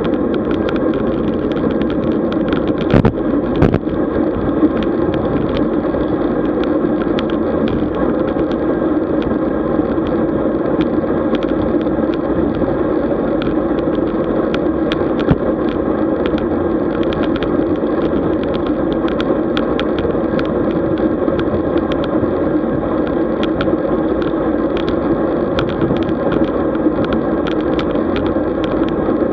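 Road bike riding noise: a steady rumble of tyres and wind with frequent small rattling clicks, and a couple of louder knocks about three seconds in.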